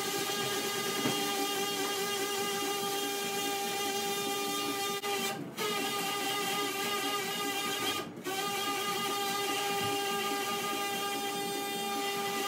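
Stryker Mako robotic-arm sagittal saw running at a steady high whine while it cuts the anterior and anterior chamfer surfaces of the femur in a total knee replacement. It stops briefly twice, about five and a half and eight seconds in, then runs on.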